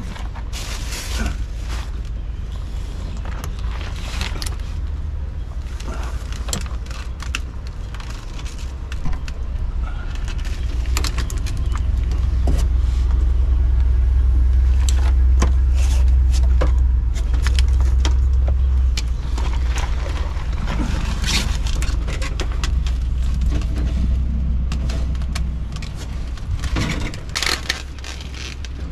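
Metal hand tools and fittings clinking and scraping in scattered sharp clicks as someone works on the underside plumbing of an RV, over a steady low rumble that grows louder for several seconds in the middle.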